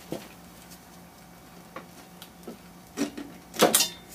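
Scattered clicks and knocks of gloved hands handling metal parts at a motorcycle's handlebar and top triple clamp, with the loudest two or three knocks near the end, over a faint steady hum.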